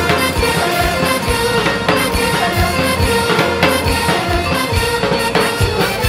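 Javanese campursari music with a steady drum beat and sustained melodic instrument tones.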